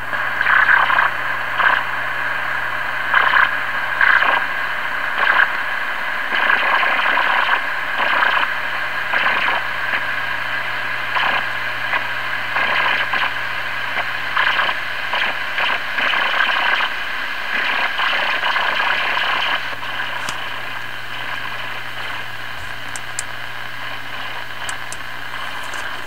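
Sony ICF-2001 shortwave receiver hissing with static and irregular crackling bursts over a steady low hum, the funny sounds of an intermittent fault. The crackling dies down about three-quarters of the way through, leaving the hiss and a few faint clicks.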